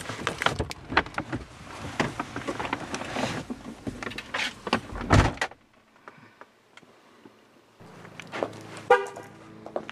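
Rustling and rattling of a paper gift bag and movement inside a car as the door is opened, then a car door slamming shut about five seconds in, followed by a few lighter clicks.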